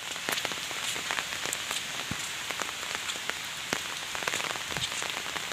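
Steady rain falling on floodwater and wet ground: a dense hiss with many separate drop ticks.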